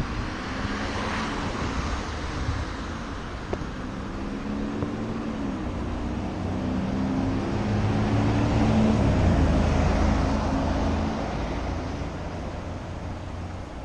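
Street traffic: a motor vehicle's engine running close by, growing louder to a peak around eight to ten seconds in and then fading as it passes.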